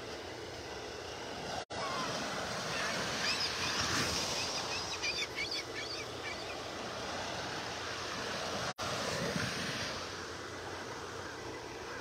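Small waves breaking and washing up a sandy beach: a steady hiss of surf that swells louder in the middle, then eases. The sound cuts out for an instant twice.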